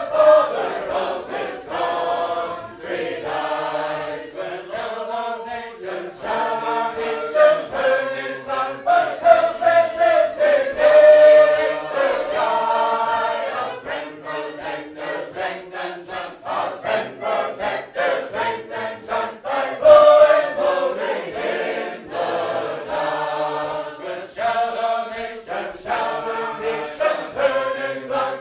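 Sacred Harp shape-note singing: a mixed group of voices singing loud, unaccompanied four-part harmony in a steady, strongly marked rhythm.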